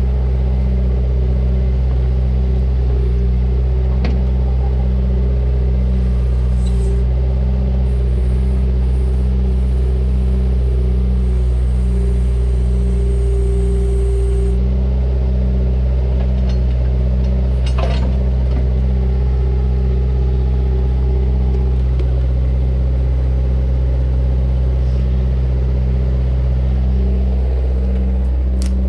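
Bobcat 331E compact excavator's diesel engine running steadily with an even, pulsing drone, and an occasional faint knock.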